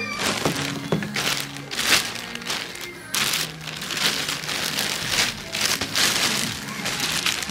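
Clear plastic bag crinkling in irregular bursts as it is handled.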